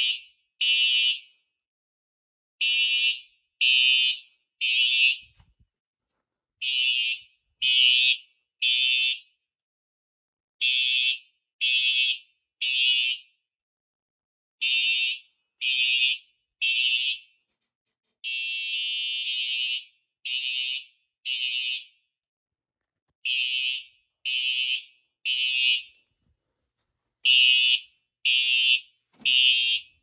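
Simplex 4903-series TrueAlert horn-strobes sounding together in a temporal-three pattern: three half-second horn blasts, then a pause, repeating about every four seconds. About two-thirds of the way through, the pattern breaks into one longer blast followed by two short ones, the horns briefly falling out of step under the NAC extender's SmartSync.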